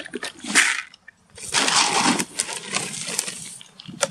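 Carp bait being handled in buckets and bags: rustling and clattering, loudest for about a second near the middle, with scattered clicks after.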